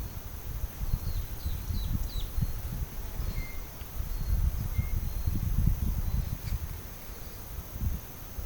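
Tropical forest ambience. Wind buffets the microphone in a low, uneven rumble over a steady high insect drone. A bird gives four quick descending chirps a second or two in, and two short level whistles come in the middle.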